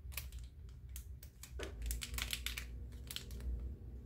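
Thin plastic packaging crinkling and crackling in the hands as a small Bluetooth key finder is worked out of its bag, in a string of short irregular clicks.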